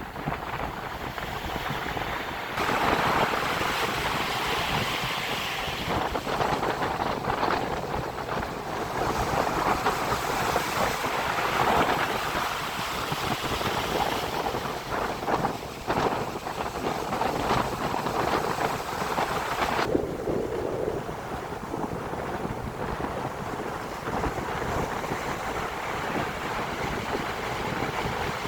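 Storm surf on the Black Sea, waves breaking and washing on the shore in swells, with strong wind buffeting the microphone. The sound changes abruptly twice, as between shots.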